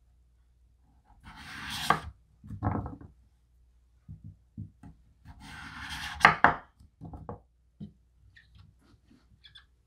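A kitchen knife slicing through raw peeled butternut squash on a wooden cutting board. There are two slow cuts, each ending in sharp knocks, with lighter taps and knocks of squash pieces on the board in between and near the end.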